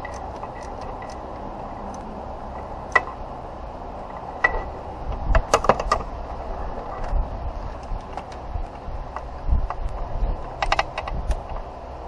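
Hands working in a car's engine bay: scattered sharp clicks and rattles of parts and tools being handled, with a cluster of clatter about halfway through and a quick run of clicks near the end, over a steady background hum.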